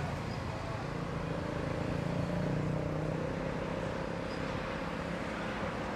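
Steady, distant drone of a Boeing 737-800's CFM56 jet engines on final approach, with a faint hum running through it.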